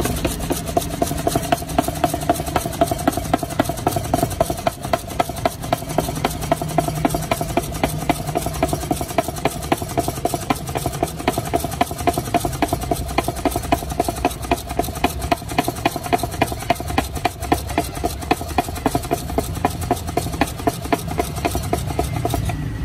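Electric drink mixer running steadily, its spindle whipping a green drink in a stainless-steel cup, with a fast regular clicking of about three a second.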